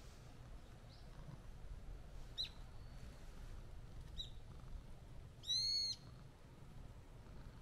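A bird calling: two short high chirps, then a louder, longer arched call about five and a half seconds in, over a low background rumble.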